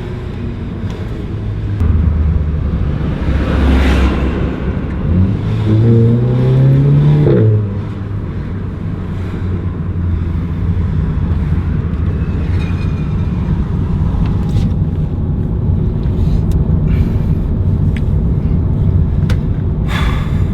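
Seat Leon Cupra's turbocharged 2.0-litre four-cylinder engine revs up once about six seconds in and drops off sharply, then runs on as a steady low drone. A few light clicks come near the end.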